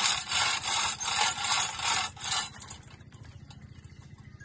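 Sandpaper rubbed against a large wooden log turning on a lathe: a coarse, pulsing rubbing hiss that stops about two and a half seconds in, over the steady low hum of the lathe's motor.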